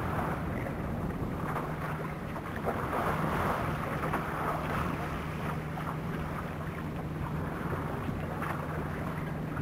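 Wind blowing across the microphone and sea water washing, as an even rushing noise that swells and eases, over a steady low hum.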